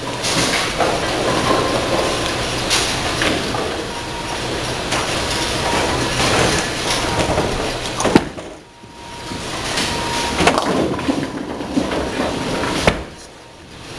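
Bowling ball rolling down a wooden lane with a steady rumble, then smashing into the pins about eight seconds in, followed by the pins clattering and the pinsetter sweep coming down, amid the rumbling din of a busy bowling alley.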